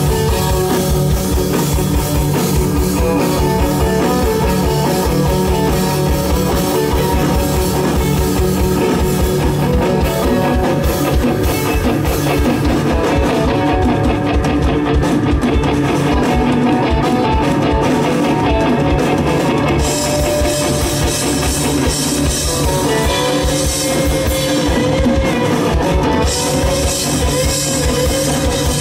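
Live fuzz-laden psychedelic rock band playing loud through a PA: distorted electric guitars, bass and a drum kit driving on steadily. The bright top end thins out for several seconds in the middle, then comes back.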